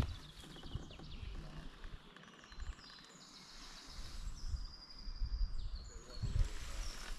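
Songbirds singing, a run of high whistled notes through the middle, over the quiet sound of canoe paddle strokes in calm water and occasional low rumbles.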